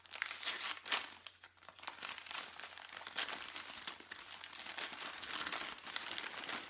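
Packing paper rustling and crumpling in the hands as it is pulled out of a case, in irregular crinkles.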